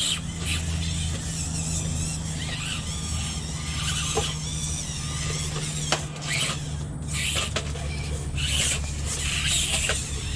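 Small electric motors and gearboxes of 1/24-scale RC rock crawlers whining in on-and-off bursts as the trucks climb over rocks, with a few sharp clicks of the trucks against stone.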